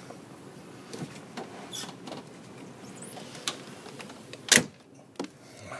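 A few scattered clicks and knocks over a steady hiss, the loudest a single sharp knock about four and a half seconds in.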